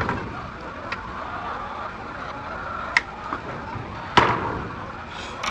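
Several sharp knocks over a steady background din, the loudest about four seconds in with a short ringing tail.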